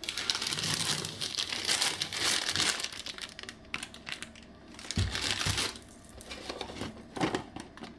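Clear plastic bag crinkling and crackling as it is handled, busiest in the first few seconds, with another short bout and a dull knock about five seconds in.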